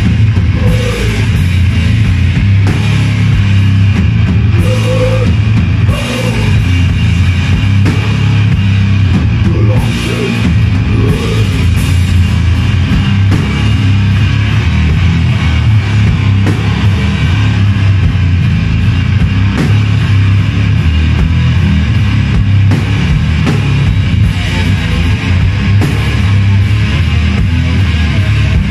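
Loud live rock band playing heavy music on electric guitar, electric bass and drum kit, without a break.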